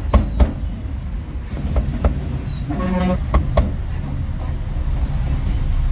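Heavy meat cleaver chopping cooked pork on a thick round wooden chopping block: several sharp chops, irregularly spaced, over a steady low rumble of road traffic.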